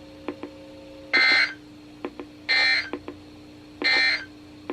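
Three short bursts of NOAA Weather Radio SAME data tones, each under half a second and about a second and a half apart: the end-of-message code that closes an alert broadcast. A faint steady hum and a few soft clicks from the radio lie between the bursts.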